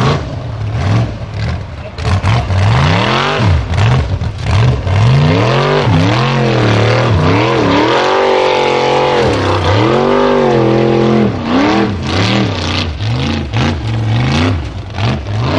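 Formula Offroad buggy's engine revving hard, the revs swinging up and down again and again, while it claws up a steep loose-gravel slope with its tyres spinning. The revs are held high for a few seconds midway, then there are short blips of throttle near the end.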